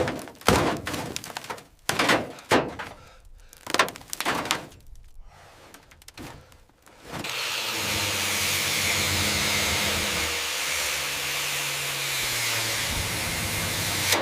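A series of irregular knocks and thunks, then about seven seconds in a loud, steady spraying hiss starts and runs on.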